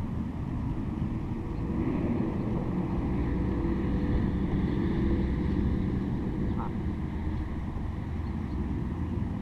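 Steady engine drone, low with faint held tones, swelling about two seconds in and easing off again a few seconds later, like a vehicle passing at a distance.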